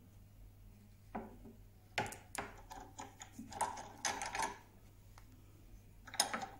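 Record cast-iron G-cramp being wound tight by hand: a run of light metallic clicks and clacks from the screw and its sliding tommy bar for a few seconds, then one more knock near the end.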